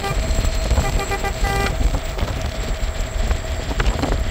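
A quick series of three short horn toots about a second in, over steady low wind and road rumble.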